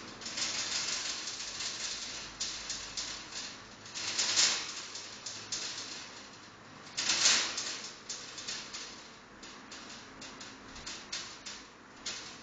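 Wire cage door rattling and clicking as a chinchilla works at it, with two louder rasping swells, one about four seconds in and one about seven seconds in.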